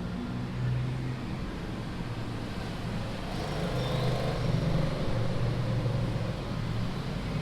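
Road traffic noise: motor vehicle engines running and passing, swelling a little in the middle.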